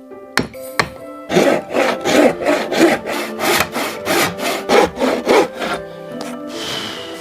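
Quick rhythmic rasping strokes, like sawing or scraping, about three a second for some four seconds, starting just over a second in, over soft background music.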